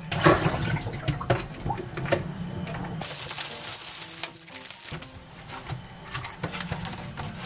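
Plastic grocery bags and packaging crinkling and rustling as they are handled, with a few light knocks, and a denser spell of rustling about halfway through.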